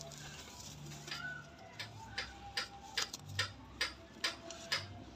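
A run of sharp clicks, about two a second, beginning about a second in.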